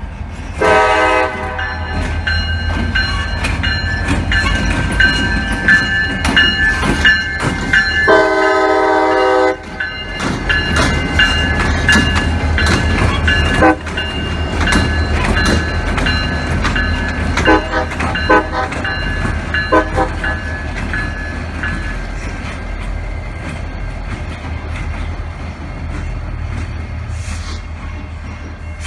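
EMD SD40-3 and GP38-2 diesel locomotives running light, with two horn blasts, a short one about a second in and a longer one about eight seconds in, over the steady rumble of the engines. A bell rings until about two-thirds of the way through, and the wheels clack sharply over rail joints a few times near the middle.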